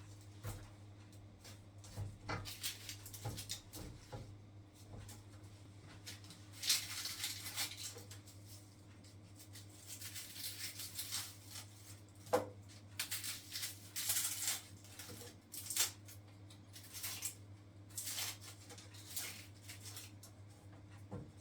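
Scattered light household handling sounds, rustling and soft knocks, over a steady low electrical hum.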